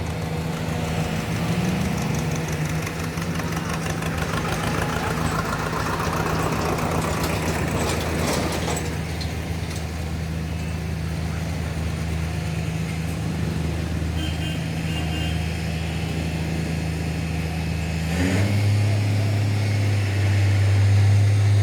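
A vehicle engine running steadily. About eighteen seconds in, its note changes and grows louder.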